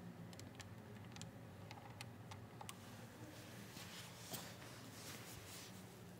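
Quiet indoor room tone: a low steady hum with faint, scattered sharp clicks in the first half and soft rustling later on.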